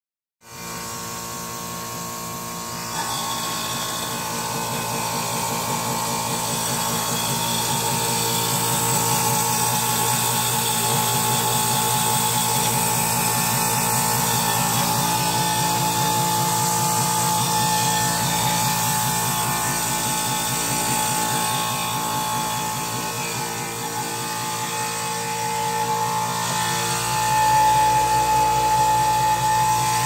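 Outdoor air-conditioner condenser unit running: a steady mechanical hum and whir from the compressor and fan, made up of several steady tones over a hiss of moving air. It gets a little louder near the end.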